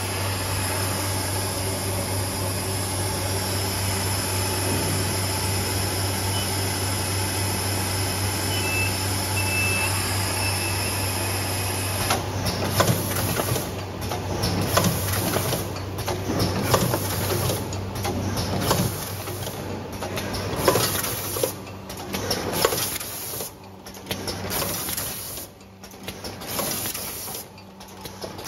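Rotary pouch packing machine for protein powder running, with a steady low hum. From about halfway in, it adds irregular clacks and knocks and a hiss that cuts in and out as the pouches are gripped and filled.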